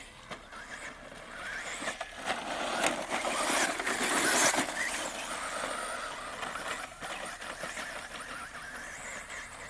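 ECX Torment RC short-course truck with a 4000kv brushless motor driving over loose sand: motor whine and tyre noise, louder as it passes close by about four seconds in, then fading as it drives off, with a few sharp knocks along the way.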